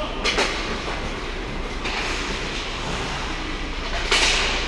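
Ice hockey skates scraping and carving on rink ice over the steady hum of an indoor rink, with a sharp clack just after the start and a short, hissing skate-like scrape about four seconds in.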